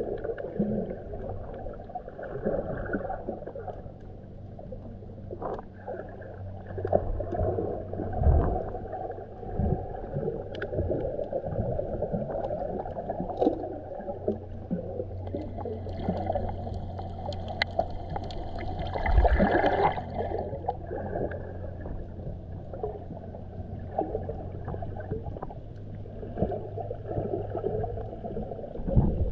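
Underwater recording in shallow sea water: muffled sloshing and a dense crackle of small clicks as water moves over the camera, with a steady low hum underneath.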